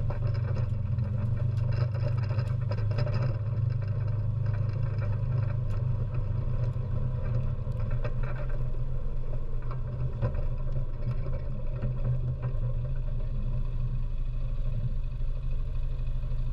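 ATV engine running steadily as the machine drives over rough dirt, heard close from the front-mounted magnetic sweeper. Light rattles and clicks from the sweeper and chassis over the bumps are frequent for the first ten seconds or so, then thin out as it comes to a stop and idles.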